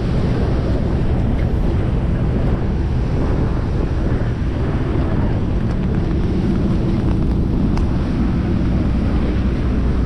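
Strong wind buffeting the microphone on the open deck of a tour boat, over a steady low rumble of the boat and the water around it.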